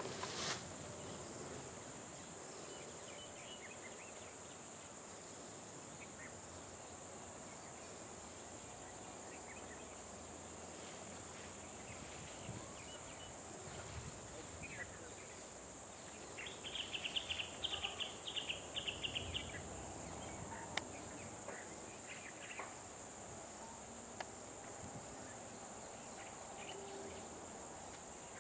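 Steady high-pitched drone of insects, with a short burst of rapid chirping a little past halfway.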